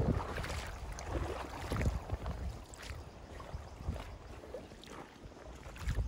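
Wind buffeting the microphone in uneven gusts over the steady rush of a shallow river.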